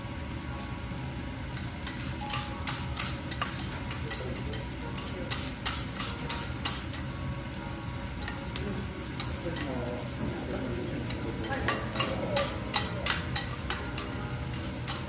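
Garlic slices sizzling on a steel teppanyaki griddle while two metal spatulas tap and scrape against the hot plate, turning them. The clicks come irregularly over a steady sizzle and bunch up in the second half.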